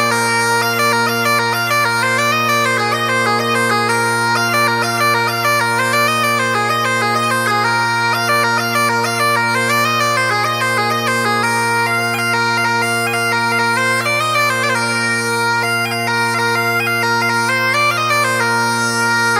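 Bagpipe music: steady drones held under a quick-moving chanter melody.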